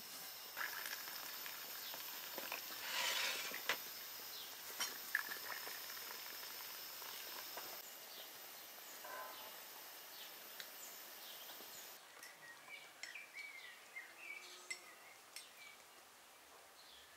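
Outdoor rural ambience: a steady high-pitched insect drone that stops about two-thirds of the way in, a few light knocks and clinks, and birds chirping near the end.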